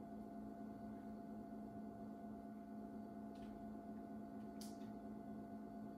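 Steady low electrical hum of a quiet room, with two faint light ticks about three and a half and four and a half seconds in.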